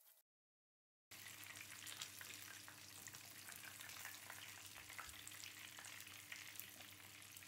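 Hot oil sizzling and crackling steadily around a whole chicken shallow-frying in a frying pan, starting about a second in after a brief silence. The chicken is browned and at the end of its frying.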